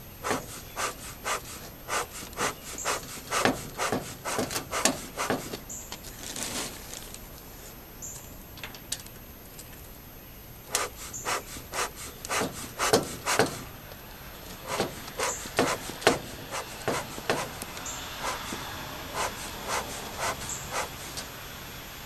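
Bee smoker bellows pumped by hand, each squeeze a short puff of air forced through the firebox, about two or three a second in runs with a few seconds' pause between them. The bellows are fanning the fire so the freshly added smoker pellets catch and give off cool smoke.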